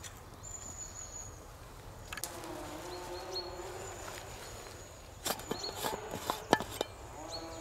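Sharp metallic clicks and clinks of a stainless steel food canister being handled and its lid worked open, a quick cluster about five to seven seconds in. A thin high whistling tone comes and goes behind it.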